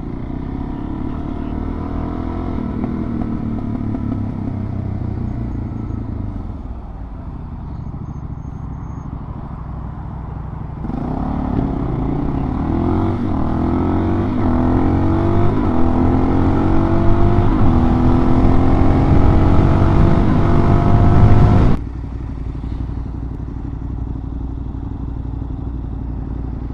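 Suzuki DR-Z400 single-cylinder four-stroke dual-sport engine heard while riding. It runs steadily, eases off, then about eleven seconds in is opened up, its pitch climbing for roughly ten seconds under hard acceleration. The throttle is shut abruptly about twenty-two seconds in, and it settles to a lower, steady running.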